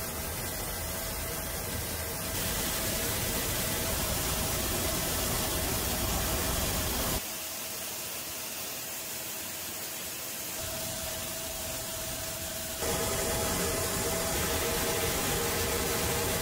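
Steady hiss and rumble of steel strip-processing line machinery, changing abruptly a few times. In the middle stretch the low rumble drops away, leaving the hiss of water jets spraying onto the moving steel strip. Near the end a faint steady hum joins the rumble.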